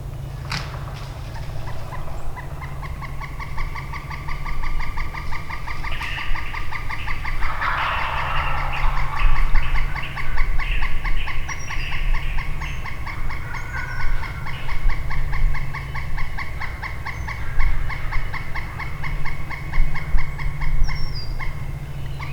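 Wild turkeys gobbling in the woods, with a loud rattling gobble about eight seconds in and more gobbles after it. Under them runs a fast, steady pulsing call.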